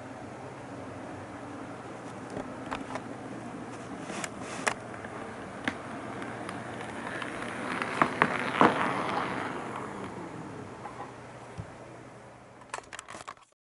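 HO-scale model EF81 electric locomotive running light on sectional track: a steady buzzing motor hum with sharp clicks of the wheels over rail joints and turnouts. It grows louder as the locomotive approaches and passes, loudest about eight to nine seconds in, then fades, with a few last clicks near the end.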